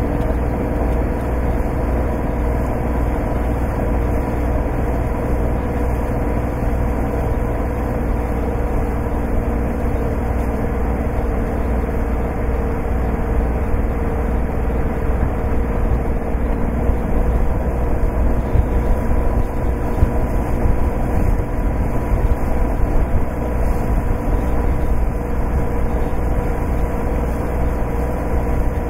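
Classic wooden electric motorboat under way: a steady rush of water along the hull and wind, with a low rumble and a faint steady hum underneath. It gets a little louder and choppier about two-thirds of the way through.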